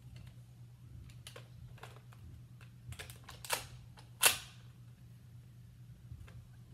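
A spring-powered Nerf blaster being handled and fired: a scatter of light plastic clicks, then two sharp snaps about three and a half and four and a quarter seconds in, the second the loudest.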